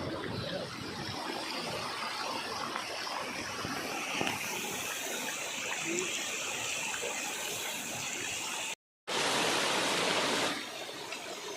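A steady rushing hiss, with higher steady tones joining in about four seconds in. It cuts to silence for a moment about nine seconds in, then comes back louder for about a second and a half.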